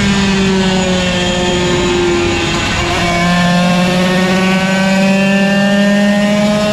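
Yamaha TZ125's 125 cc two-stroke single-cylinder engine under racing load: the revs fall for about three seconds, jump up with a gear change, then climb steadily as it accelerates.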